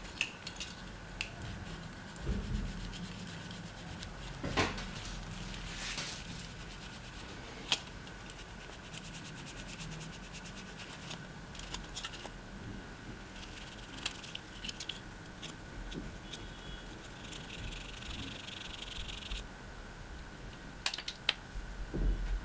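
Cloth rubbing against a laptop's metal heatsink and fan assembly, with scattered light clicks and clinks as the part is handled and turned, wiping old thermal paste off the contact plate.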